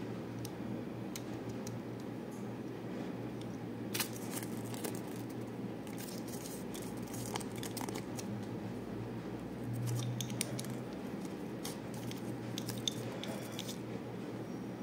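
Scattered light clicks and crinkles of hands handling a small plastic toy figure and its paper leaflet, over a steady low hum.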